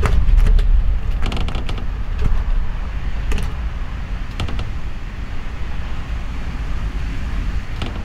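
Gale-force wind gusting against a house, heard from inside a bedroom: a deep rumble that surges and eases, loudest near the start, with scattered sharp clicks.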